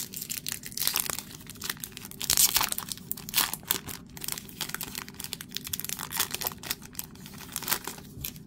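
Foil wrapper of a trading-card pack being torn open and crinkled by hand: a dense run of irregular crackles, loudest about two and a half seconds in.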